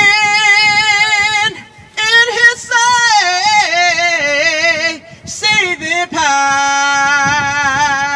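A woman singing a slow gospel hymn solo and unaccompanied, in three drawn-out phrases: a long held note, a wavering run that slides up and down, then another long held note near the end.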